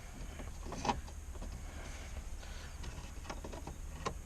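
A few light clicks and knocks of a plastic dash-kit adapter and stereo being handled and fitted into the dash, with a sharper knock a little under a second in and another near the end, over a low steady hum.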